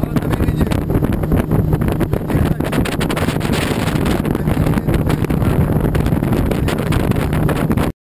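Small boat's outboard motor running at speed, with heavy wind buffeting on the microphone; it cuts off suddenly near the end.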